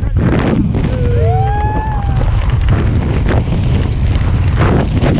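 Heavy freefall wind buffeting the camera microphone during a tandem skydive, a steady loud rushing rumble, while the parachute is being deployed. A short pitched gliding sound rises and falls about a second in.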